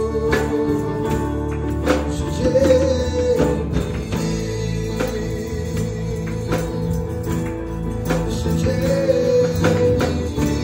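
Live gospel worship music through a PA: a man singing, with acoustic guitar strumming and band accompaniment.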